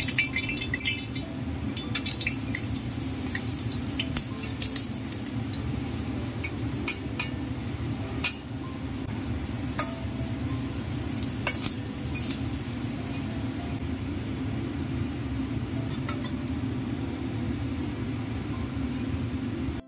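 Metal spatula clinking and scraping against a carbon-steel wok as slices fry in hot oil, with a light sizzle. Sharp clinks come scattered throughout over a steady low hum.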